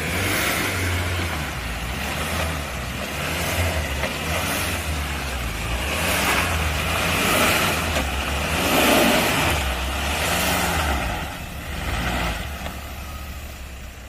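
Off-road 4x4 engine working and revving in repeated swells, loudest about nine seconds in, then easing off near the end.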